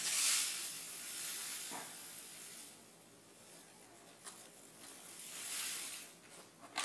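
Panko breadcrumbs pouring from their bag into a small measuring cup: a hissing trickle that eases off after a couple of seconds, then a second pour near the end.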